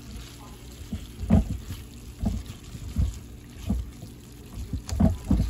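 Beef cubes browning in oil in a frying pan, turned over with a silicone spatula: low, irregular thuds, about six, as pieces are flipped and knocked against the pan, over a soft sizzle.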